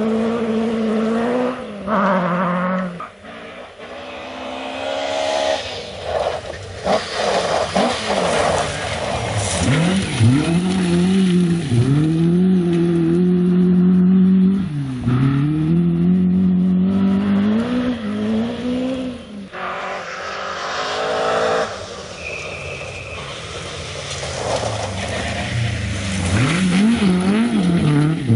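Historic rally cars at full throttle on a loose gravel stage, passing one after another. The engines rev hard and the pitch drops sharply at each gear change or lift, over the hiss and rattle of gravel thrown from the tyres.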